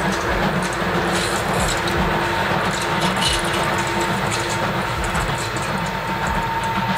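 Ty2 steam locomotive and its passenger coaches running past: a steady rumbling train noise with low thuds coming every second or so.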